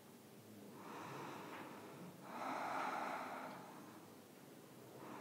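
A woman's slow, deep breathing: a long breath beginning about a second in, followed almost at once by a longer, louder one, then a quieter pause.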